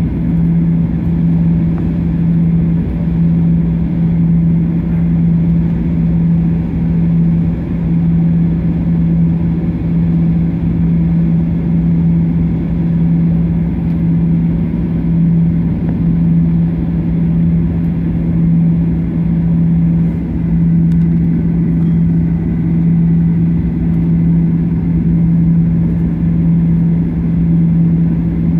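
Cabin noise inside a Boeing 737-800 taxiing: a steady low drone from the engines and cabin air with a constant hum.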